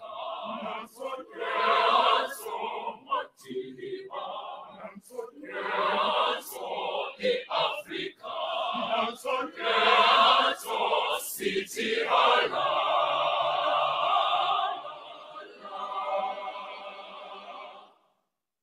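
Mixed-voice school choir singing a cappella in short, rhythmic phrases, then holding a long chord that cuts off sharply near the end.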